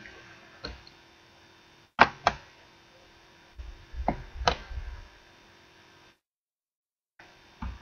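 Computer mouse clicking several times, some clicks in quick pairs, over a faint steady hum.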